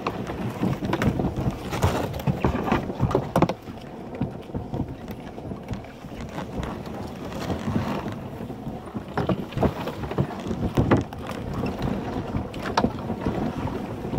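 Plastic kayak being dragged over grass and brush by its carry handle: the hull scrapes and rustles steadily, with irregular knocks and bumps as it catches on the ground.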